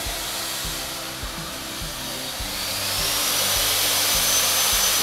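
Shop vacuum's motor running with a steady rushing noise and a high whine whose pitch rises about three seconds in, over background music with a steady beat.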